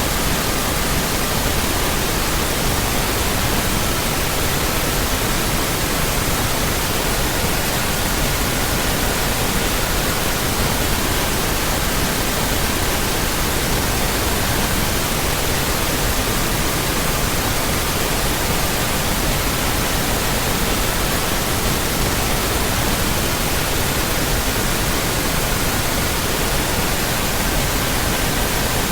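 Steady pink noise, a dense even hiss across all pitches. Faint pure tones sit underneath it and change pitch every few seconds, taking turns among 1200, 1320, 1440 and 1555 Hz.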